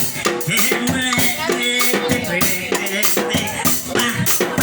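Upbeat band music with a steady beat, a shaker rattling over it and repeating pitched notes.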